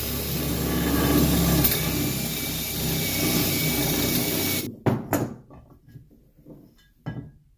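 Cordless drill running steadily under load, boring into a part stuck on a vacuum pump's motor shaft to destroy it and get it off. It cuts off suddenly a little under five seconds in, followed by a few short knocks.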